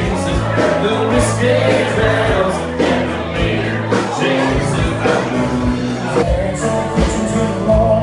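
A band playing a song with a singer over a steady drum beat.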